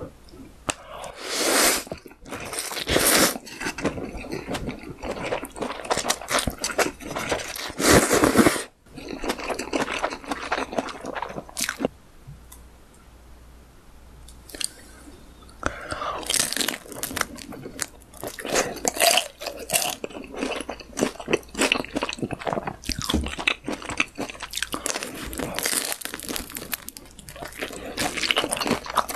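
Close-miked eating: noodles slurped from a bowl of beef pho in a few loud bursts, then crisp bites and chewing of deep-fried spring rolls, a rapid crackly crunching through the second half.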